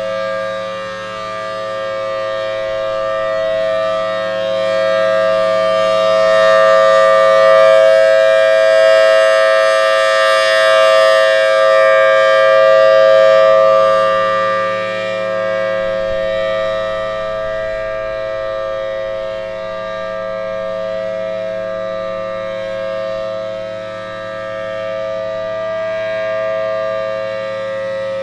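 Federal Signal Thunderbolt civil defense siren sounding a steady two-tone chord at full speed, swelling louder through the middle and easing back toward the end.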